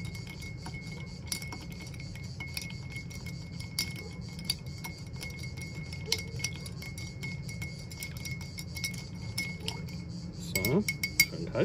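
Metal bar spoon stirring ice cubes in a glass mixing glass, with irregular light clinks of ice and spoon against the glass and a louder cluster of clinks near the end. The drink is being stirred to chill it.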